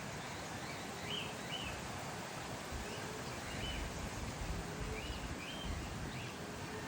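Eastern rosellas calling: short, high chirps, mostly in pairs, repeating every second or two over a steady low background rumble.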